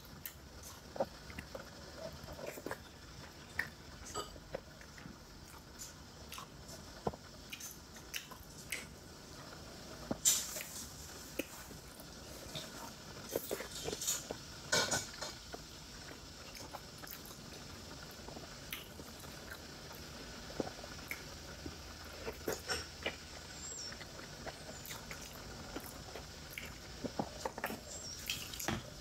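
Close-miked eating sounds: steamed momo dumplings being bitten and chewed, with soft wet mouth smacks and small clicks at irregular intervals. A couple of louder bites or smacks come about ten and fifteen seconds in.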